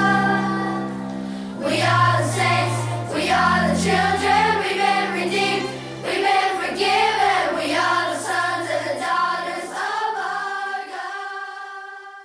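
Background music: a choir singing a Christian praise song over sustained instrumental backing, fading out near the end.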